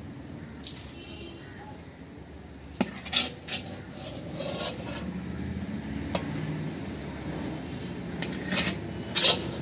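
A metal spatula scrapes thick kalakand mixture around the inside of a large metal kadhai. A few sharp metallic clinks come around three seconds in and again near the end, as the spatula knocks against the pan and the steel bowl.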